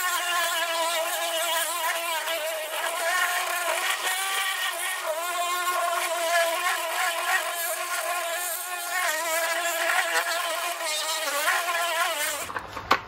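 Corded electric orbital polisher with a foam pad buffing rubbing compound on an oxidized plastic headlight lens, as a final polishing pass. Its motor gives a steady high whine that wavers slightly in pitch as it is worked over the lens, and it stops about a second before the end.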